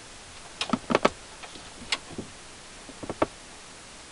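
Scattered small clicks and taps, a few in quick pairs, from hands working on car stereo wiring and its connectors.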